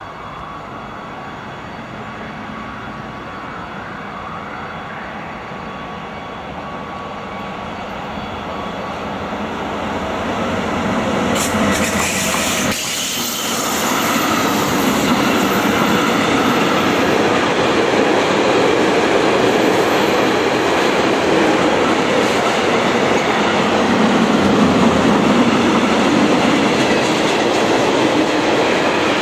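DB class 185 electric locomotive hauling a mixed freight train through a station: it grows louder as it approaches over the first dozen seconds, then the wagons roll past with a steady, loud rumble and wheel noise on the rails.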